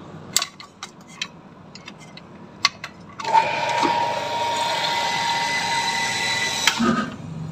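A few clicks as the power plug is handled, then a Shimizu electric water pump's motor starts about three seconds in and runs with a steady whine. It cuts off abruptly near the end.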